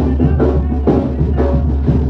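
Live village wind band with clarinets, brass and drums playing a dance tune with a steady beat over a constant low bass.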